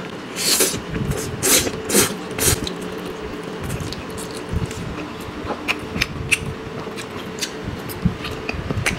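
A person slurping spicy noodles off a fork, about four sucking slurps in the first three seconds, then chewing with small wet mouth clicks.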